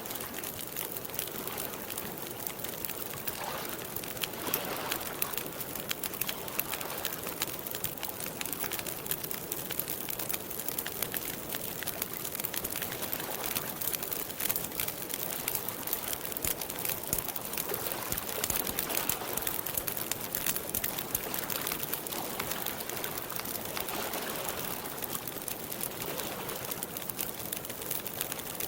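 Wood campfire crackling, many small pops and snaps over a steady hiss.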